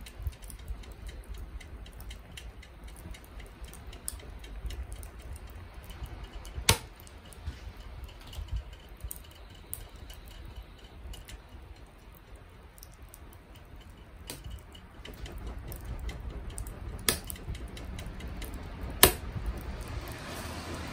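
Binchotan charcoal heating up in a shichirin: sparse sharp pops and ticks over a low rumble. The loudest pops come about seven seconds in and twice near the end.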